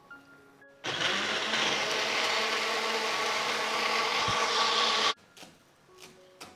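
Small electric blender running for about four seconds, grinding shallots, garlic and roasted candlenuts into a paste. It starts and cuts off abruptly. A few knocks of a cleaver chopping spring onions on a wooden board follow near the end.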